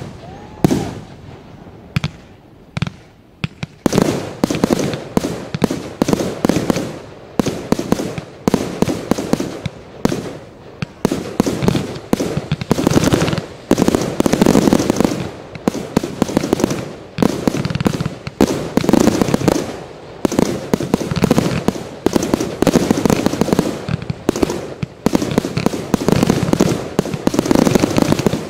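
Fireworks display: shells and comets going off with sharp bangs, scattered for the first few seconds, then a dense, continuous barrage of rapid bangs.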